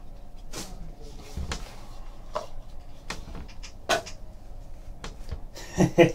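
A stack of trading cards and a small card-stock box being handled: the box opened, the cards slid out and squared up in the hand, making light clicks, taps and scrapes, with one sharper click about four seconds in.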